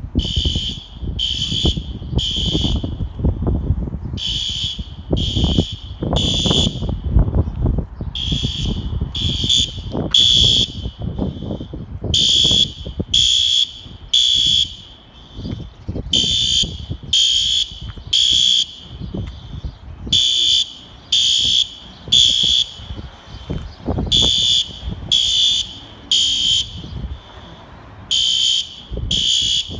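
System Sensor fire alarm horns sounding the temporal-three evacuation pattern: three short high blasts about a second apart, then a pause, repeating every four seconds. The horns are unsynchronized, so a fainter horn keeps sounding out of step in the gaps.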